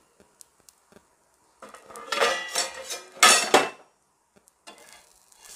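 Metal cookware clattering and scraping against an iron tava for about two seconds, ending in two sharp clanks, then faint sizzling of the batter frying on low heat near the end.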